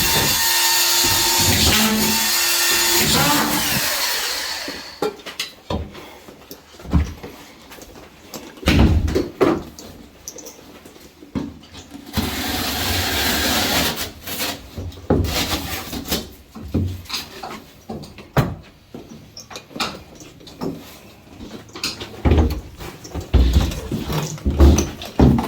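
A handheld power tool runs in two spells of several seconds, the first about five seconds long and the second shorter, with knocks and bumps from handling drywall in between.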